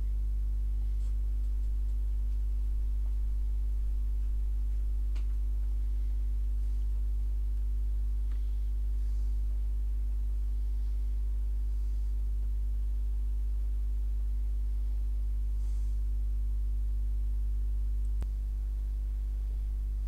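A steady low electrical hum in the recording, with a few faint clicks.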